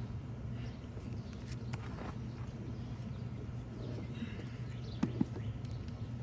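Hands digging through soil in a deep potato bucket: scattered scraping and rustling, with two sharp knocks in quick succession about five seconds in, over a steady low hum.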